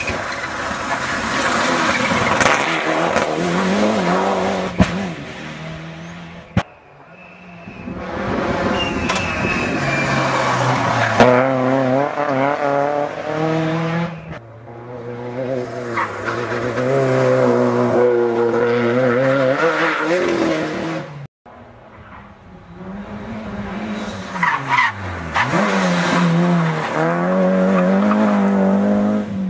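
Rally cars driven flat out through a bend, one after another in four short passes, each cut off abruptly. The engines rev high, and their pitch rises and drops with gear changes and lifting off.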